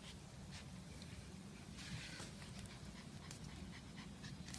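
Small poodle puppy panting softly, with a few faint ticks, over a low steady hum.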